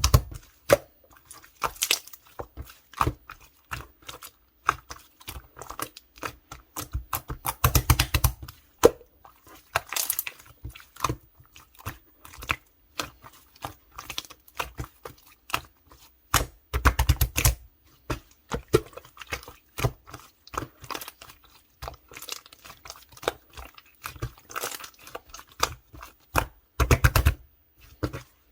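Clear slime being squished and pressed by hand: irregular runs of sticky clicks, crackles and small pops, with a few louder squishing bursts.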